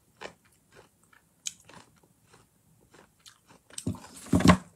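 A person chewing food close to the microphone: soft, scattered mouth clicks, then a louder short burst about four seconds in.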